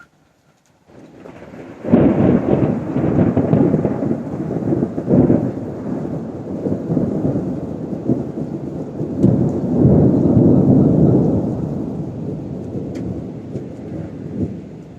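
Thunder over steady rain: a rumble builds out of near quiet and breaks into a loud clap about two seconds in. It rolls on with a second swell around the middle, then slowly fades.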